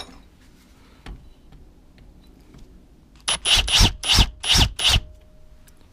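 Handheld power drill run in several short bursts, a larger twist bit shaving out a countersink around a screw hole in an aluminum bar held in a vise. A small knock comes about a second before the drilling.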